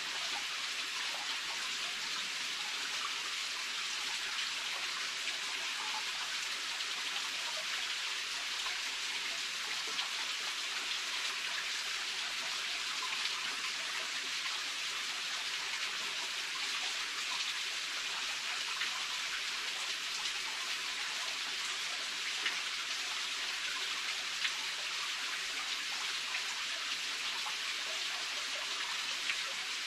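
Steady hiss of water, continuous and unchanging, with faint scattered small ticks.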